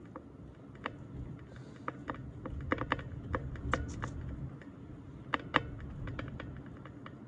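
Car tyres rolling slowly over snow and ice, with scattered sharp crackles and crunches over a low steady rumble, heard from inside the car's cabin.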